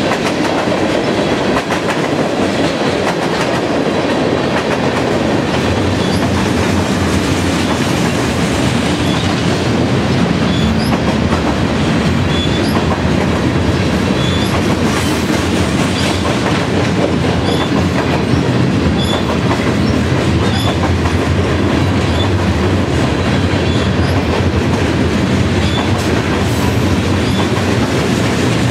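A passing freight train's cars (hoppers, boxcars and tank cars) rolling by: a steady, loud rumble and rattle of steel wheels on the rails, with short high squeaks now and then.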